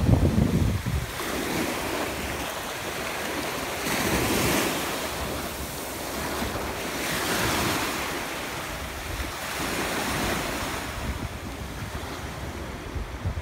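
Small surf breaking and washing up over the sand, swelling and easing three times. Wind buffets the microphone in the first second.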